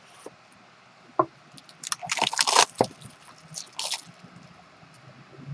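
Trading-card box packaging being handled and opened: a light click, then two short bouts of crinkling and scraping about two and four seconds in.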